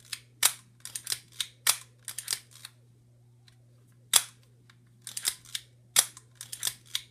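Leica M3's mechanism being worked by hand with the back open: quick clusters of small mechanical clicks, with a single sharper, louder click every second or two, the loudest about four seconds in.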